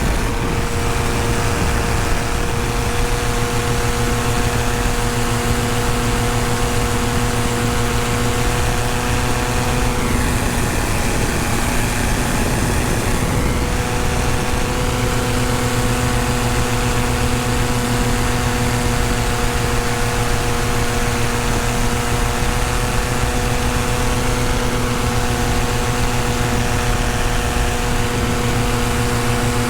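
Tandem paramotor engine and propeller running steadily in flight. About ten seconds in, the engine note wavers and shifts for a few seconds, then settles back to a steady drone.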